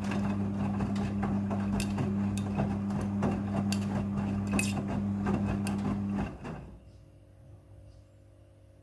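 Midea front-loading washing machine turning its drum during the rinse: a steady motor hum with many clicks and knocks from the tumbling laundry. About six seconds in the motor stops and it goes much quieter.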